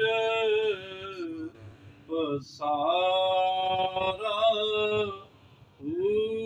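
A man's solo voice singing Punjabi Sufi kalam unaccompanied, in long held and ornamented notes. He breaks off for a moment about five seconds in, then starts another long held note.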